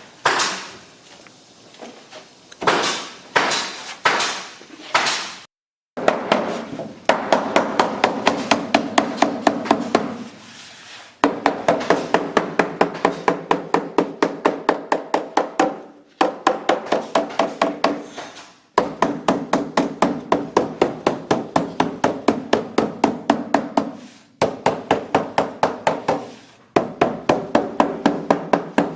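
Rapid, even hammer blows on a glued veneer panel, about four a second in runs of several seconds with short breaks, a few separate knocks at first. The knocking presses the veneer down onto the contact-cemented countertop so it bonds tightly.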